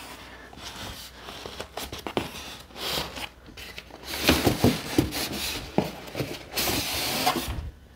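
A tight-fitting polystyrene foam packing insert being worked loose and pulled from a cardboard box: irregular rubbing and scraping of foam against cardboard, with short squeaks about halfway through and a louder scrape near the end.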